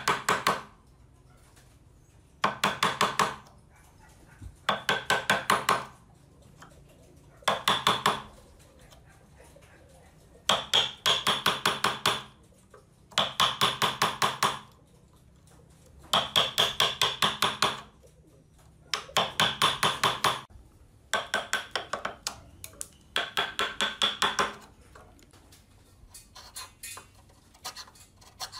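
A hammer rapidly tapping a wood chisel into the end of a board, in about ten bursts of quick ringing strikes with short pauses between. This is chopping out the waste for hidden dovetail sockets by hand. Near the end the taps are lighter and sparser.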